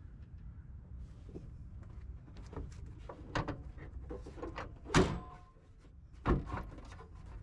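Hood release on a Suzuki Samurai being tried with its new cable: scattered clicks and knocks from the release handle and latch, with a solid thunk about five seconds in and another a little over a second later.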